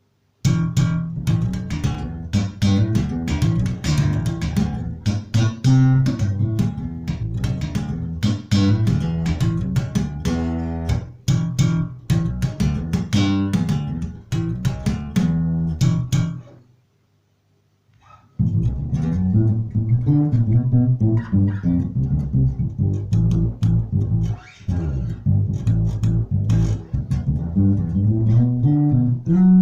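Maruszczyk Elwood X5 five-string electric bass played solo, a run of plucked notes with sharp attacks. About two-thirds of the way through the playing stops for about two seconds, then starts again.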